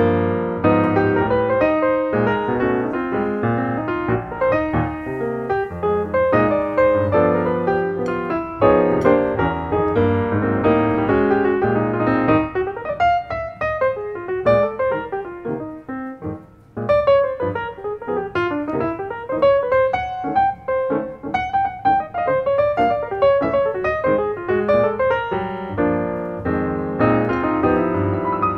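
Background piano music, with a brief pause a little past halfway through.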